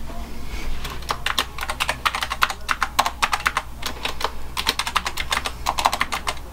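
Typing on a computer keyboard: quick runs of keystrokes starting about a second in, with a short pause in the middle.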